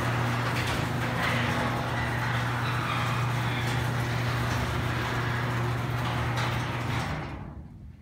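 Craftsman 1/2 horsepower chain-drive garage door opener running as it closes the door: a steady motor hum over a rattling mechanical noise, stopping about seven seconds in as the door reaches the floor.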